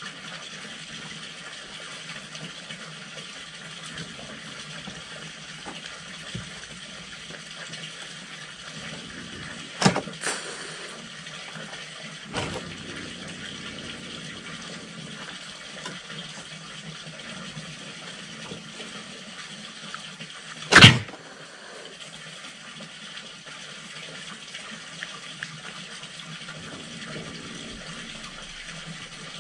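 A steady, even hiss like running water, broken by a couple of sharp knocks about ten and twelve seconds in and one loud, short, harsh burst about twenty-one seconds in.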